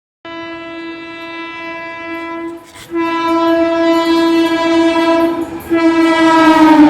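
Rajdhani Express locomotive horn sounding in three long blasts, the second and third louder than the first. Near the end the horn's pitch drops as the train passes, and the rumble of the passing train rises.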